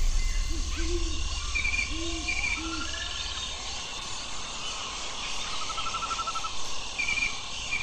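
Forest ambience of birds and insects: a steady high insect hiss under scattered bird chirps, with a bird's low repeated calls in the first few seconds and a short trill in the second half. A low rumble runs under the first half and then fades.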